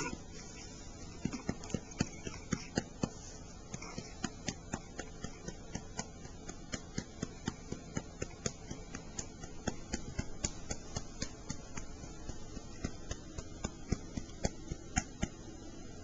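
A hand patting a baby's back to bring up a burp: a long run of pats, about two to three a second.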